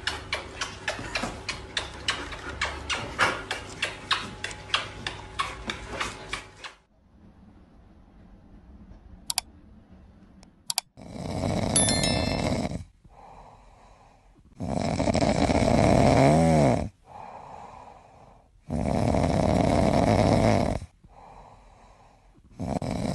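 Snoring from a sleeping red squirrel: three long, loud breaths in the second half, one with a falling squeak near its end. Before it comes a fast run of taps lasting several seconds, then two single clicks.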